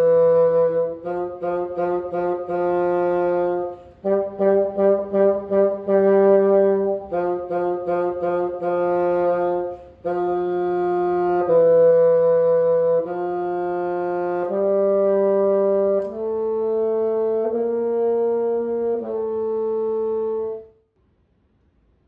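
A bassoon playing a simple tune: runs of short repeated notes, then longer held notes, ending on a held note that stops about 21 seconds in.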